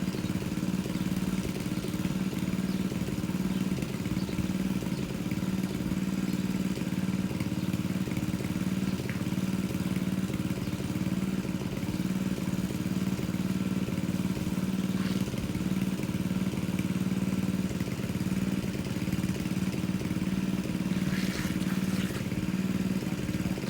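Engine-driven water pump running steadily at a constant pitch as it pumps water out of a fish pond.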